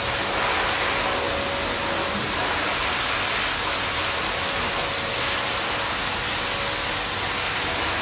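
Water running steadily from a bath tap, splashing over a soapy African grey parrot and the hands rinsing it in a tub.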